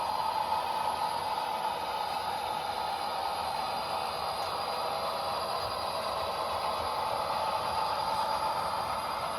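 Model train running on the layout's track: a steady rolling rattle of wheels and motor, even throughout.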